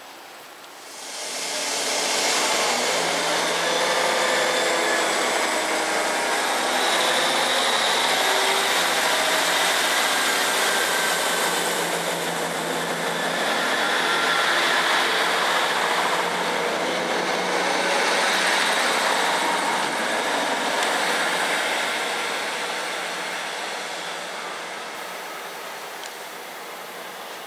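Class 158 diesel multiple unit running along the platform with its diesel engine note and wheel-on-rail noise, a rising whine about four to seven seconds in. The train moves away and the sound fades over the last several seconds.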